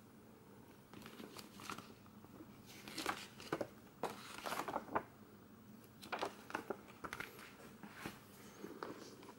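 Paper instruction booklet being handled and its pages turned, giving irregular crinkles and rustles.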